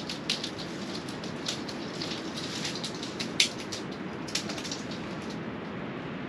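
Steady rushing of strong wind, with scattered light ticks and taps, one sharper tap about three and a half seconds in.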